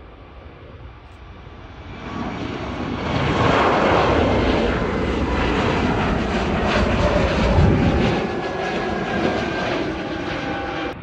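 Jet engines of a twin-engine Airbus A321 airliner at takeoff thrust as it climbs away. The engine noise swells about two seconds in, stays loudest for several seconds as the plane passes overhead, eases a little, and cuts off abruptly near the end.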